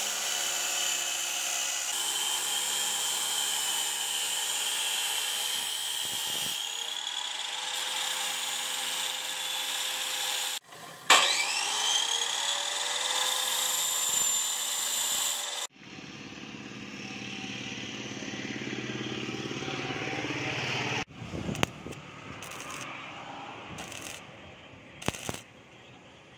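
Electric grinder working steel: a steady high whine over the grinding noise, cutting out about ten seconds in and spinning straight back up with a rising whine. Later a quieter, duller run of machine noise, then a few separate knocks near the end.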